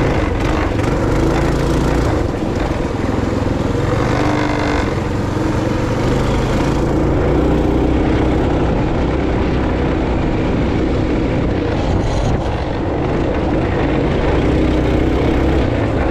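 Small bike's engine running steadily under way on a rocky dirt trail, with a continuous low wind rumble on the microphone.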